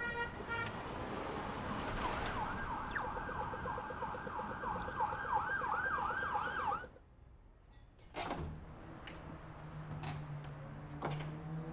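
Street traffic noise with an emergency-vehicle siren sounding in rapid repeated rising sweeps that come faster and faster. It all cuts off suddenly about seven seconds in, giving way to a quieter room with sharp clicks of high-heeled footsteps and a low steady drone.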